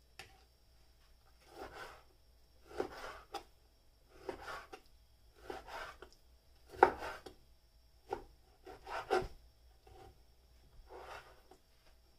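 Knife cutting pork shoulder into cubes on a plastic cutting board. About ten separate short strokes come roughly one a second, the loudest a little past the middle.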